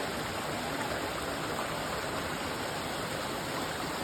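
Flowing water rushing steadily, a continuous even hiss with no breaks.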